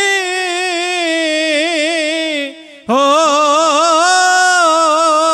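Male kavishri singers holding long, wavering notes of a Punjabi kavishri verse, with no instruments heard. The note fades out a little past halfway, and after a short gap a new long note starts on a drawn-out 'ho'.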